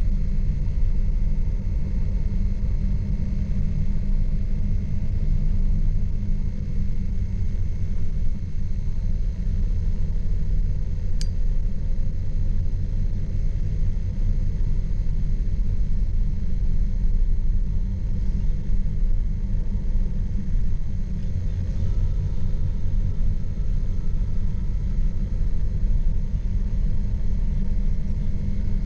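Steady low rumble of a car's engine and tyres on a snowy road, heard from inside the cabin while driving.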